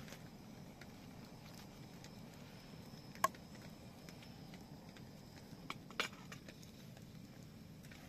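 A few short, sharp clicks over faint steady background noise, the loudest about three seconds in and another about six seconds in.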